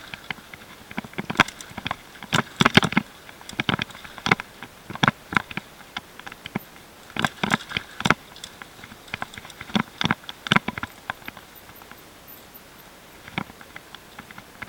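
Mountain bike clattering and rattling over a rough, rocky trail on a fast descent: irregular clusters of sharp knocks and clacks as the bike hits bumps, with a quieter smooth stretch before one last knock near the end.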